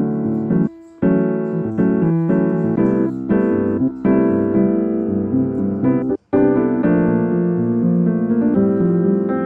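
Background piano music playing a melody, cutting out briefly about a second in and again about six seconds in.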